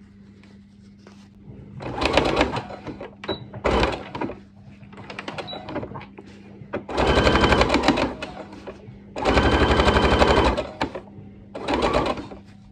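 Domestic electric sewing machine stitching in short runs: five bursts of rapid needle strokes, the two longest about a second and a half each, starting and stopping as the fabric is fed through.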